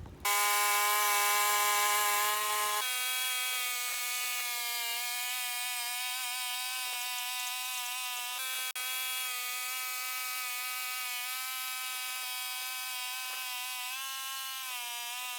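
Portable band sawmill running steadily through a cut in a cedar log, a high, even whine whose pitch shifts once about three seconds in and then holds.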